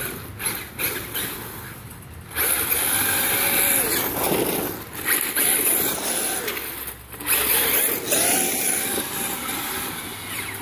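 Traxxas X-Maxx 8S electric RC monster truck driving on concrete: its motor whines and its tyres run on the pavement in several bursts of throttle, with short easings-off between them.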